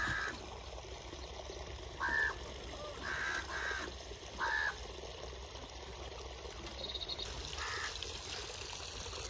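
A bird's short, harsh calls, about six of them spread unevenly across several seconds, over a steady low rumble.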